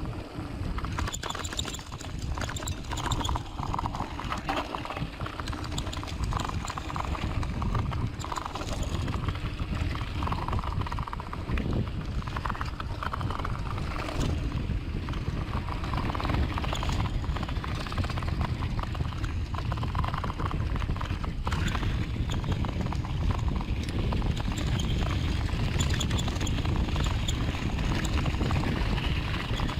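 Mountain bike riding a rough dirt-and-rock trail: a continuous rattle of the bike and its tyres over the bumps.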